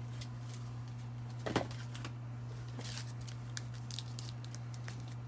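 Steady low hum with scattered faint clicks and rustles; one sharper click about a second and a half in.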